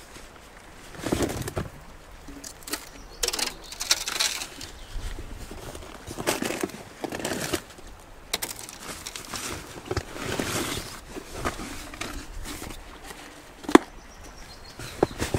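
Irregular rustling and handling noises in short bursts, with a sharp click near the end and another just after.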